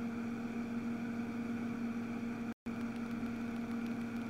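Steady electrical hum with a faint hiss underneath: room tone of the microphone setup. The audio cuts out completely for a split second a little past halfway.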